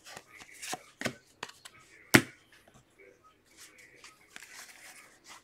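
Football trading cards handled and flipped through by hand: a string of sharp card snaps and clicks, the loudest about two seconds in, then softer rubbing and rustling of the cards.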